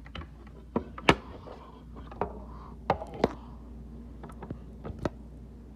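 Irregular sharp clicks and knocks, about ten of them, as a screwdriver, screws and the parts of a small stool are handled during reassembly; the loudest knock comes about a second in.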